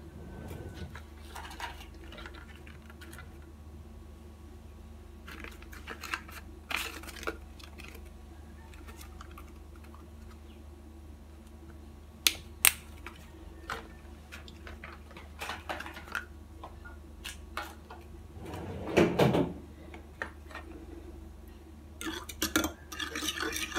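Kitchen utensils and dishes being handled: a drawer is opened and rummaged, with scattered clinks, two sharp clicks and a louder scrape. About 22 seconds in, a utensil starts clinking rapidly against a glass measuring jug as a milk mixture is stirred.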